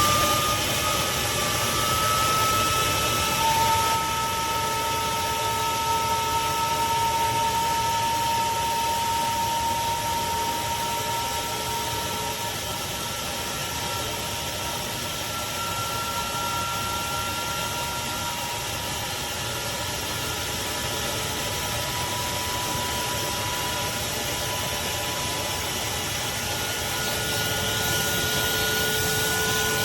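Craftsman 16-gallon, 6.5 peak HP wet/dry shop vac running steadily, a rushing airflow noise with a high motor whine. Near the end the whine steps up in pitch and gets a little louder, as the airflow through the hose changes.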